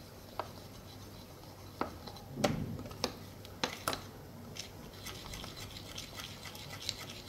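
Steel spoon beating thick dhokla batter in a ceramic bowl just after Eno fruit salt is added, scraping and clinking against the bowl's sides and base. One louder knock comes about two and a half seconds in, and there are quick rapid scraping strokes in the second half.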